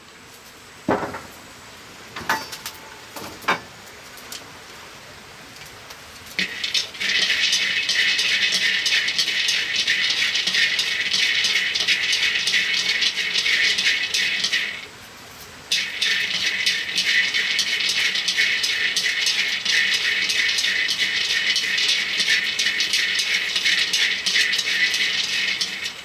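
Peanuts rattling in a dry metal wok as they are stirred with chopsticks to dry-roast them: a dense, steady clatter that begins several seconds in and breaks off for about a second midway. A few separate knocks come before it.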